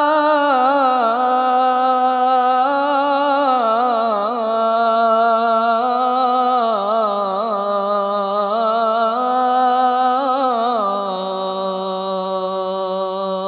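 A male muezzin's unaccompanied voice chanting the adhan (Islamic call to prayer), drawing out the end of 'hayya ʿala s-salah' (come to prayer) in a long ornamented melisma with wavering pitch. About eleven seconds in it settles onto a lower held note.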